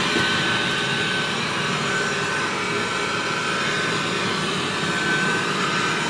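Dreame Bot L10 Pro robot vacuum running steadily on a small rug, its fan and brushes making an even noise with a thin, steady high whine on top. It stays in standard suction mode and has not yet switched to its carpet boost.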